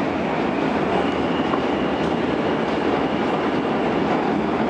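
R160 New York City subway car running at speed through a tunnel, heard from inside the car: a steady rumble of wheels on rail, with a faint high whine for a few seconds in the middle.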